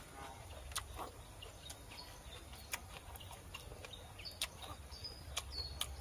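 Faint scattered clicks and smacks of a person chewing and eating, with short bird chirps in the background in the second half.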